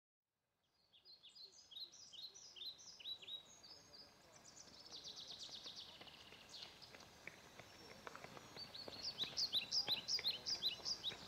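Small songbirds chirping: repeated short, falling chirps with a quick trill partway through, after under a second of silence. In the second half, running footsteps on asphalt come in and grow louder.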